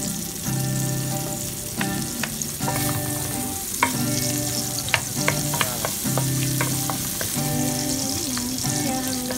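Garlic and onion sizzling in hot oil in a stainless-steel wok, stirred with a wooden spoon that clicks and scrapes against the pan several times. Low held notes of background music, changing about once a second, run underneath.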